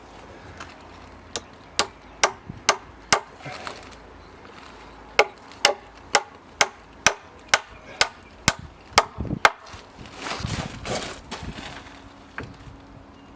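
Hammer driving nails into timber: two runs of sharp blows, the second a steady run of about ten strikes at roughly two a second, followed by a brief softer shuffling noise near the end.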